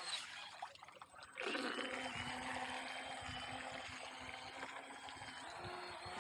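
Radio-controlled boat running on a river: a thin steady motor whine over the rush of water, with a dip about a second in before the water noise comes back up sharply.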